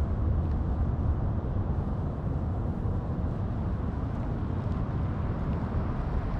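Heavy wind buffeting the microphone: a steady low rumble.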